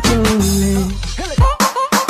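Music with a beat of deep bass kick drums that drop in pitch, under a melody.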